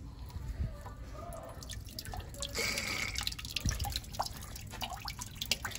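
Water dripping and splashing from a boiler drain valve into a bucket as a hydronic heating loop is drained. Irregular drips start about a second and a half in, with a short spurt of water around the middle.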